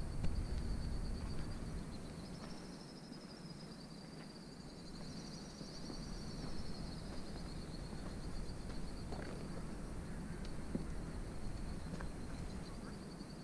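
A steady, high-pitched insect trill that wavers slightly in pitch, over a low rumble.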